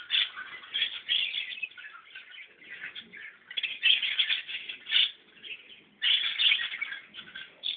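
Small birds chirping busily, many rapid high chirps overlapping in bursts that last a second or so, with short quieter gaps between them.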